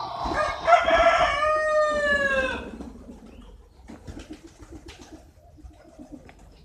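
A rooster crowing once, a long call that falls in pitch at its end. Faint scattered clicks follow.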